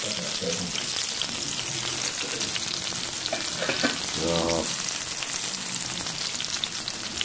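Breaded chicken cordon bleu cutlets frying in oil in a pan: a steady sizzle with fine crackling.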